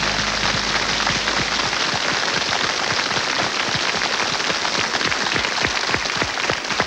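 Studio audience applauding steadily, a dense patter of many hands. The band's last held chord dies away under the clapping in the first two seconds.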